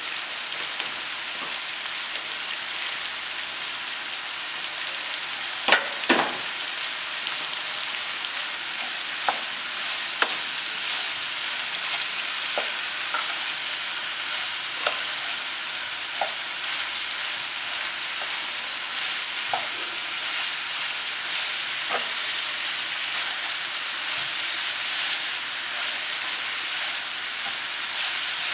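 Thinly sliced onions sizzling steadily in hot coconut oil as they are sautéed, with a stirring utensil clicking against the pan every few seconds, loudest about six seconds in.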